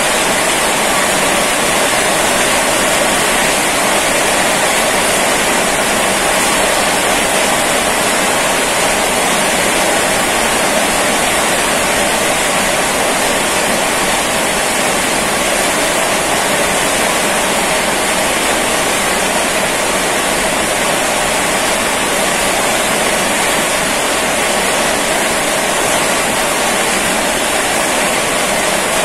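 Rain falling steadily: a loud, unbroken rush of noise with no separate drops or changes.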